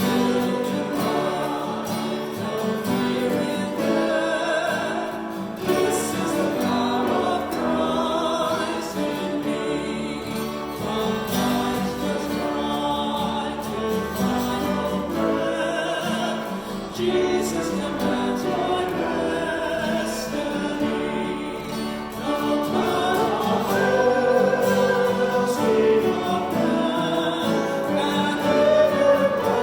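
Music: a hymn sung by a choir of voices with instrumental accompaniment.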